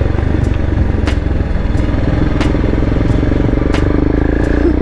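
Royal Enfield Himalayan's single-cylinder engine running steadily as the motorcycle is ridden through traffic, heard from the rider's position, with a few sharp clicks at irregular intervals.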